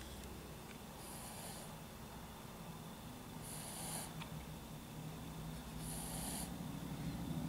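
Snoring in sleep: a steady low snore with a short hissing breath about every two and a half seconds, three in all, getting louder near the end.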